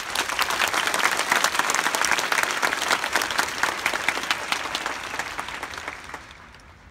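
Crowd of supporters applauding in a stadium, a dense clapping that is loudest in the first few seconds and dies away near the end.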